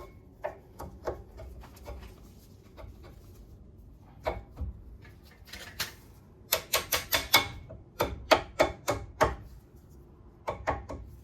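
Sharp clicks and knocks of brake parts being handled and fitted during a brake pad and wear sensor change, scattered at first, then a quick run of about six taps in the middle and more clicks after.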